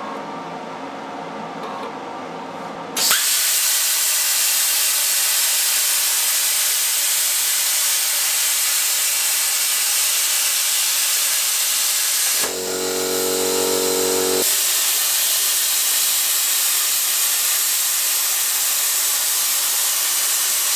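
A Stamos 85A plasma cutter's torch fires about three seconds in and cuts sheet steel with a loud, steady hiss. A steady hum comes before the arc starts. About midway the hiss gives way for a couple of seconds to a lower buzzing hum, then comes back.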